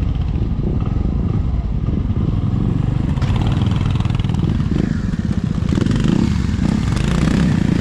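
Motorcycle engine running on the move, loud and steady.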